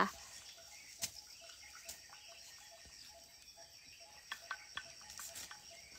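Faint insects chirping, a short note repeated several times a second over a thin steady high tone, with a few scattered soft clicks, more of them near the end.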